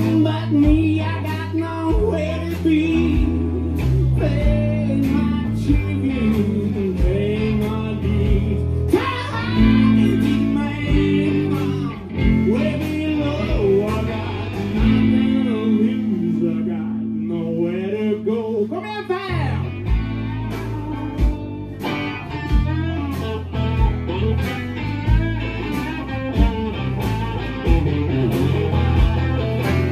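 Live rock band playing: electric guitars over bass and a drum kit keeping a steady beat. A little past the middle the drums drop out for a few seconds while a guitar line bends upward, then the full band comes back in.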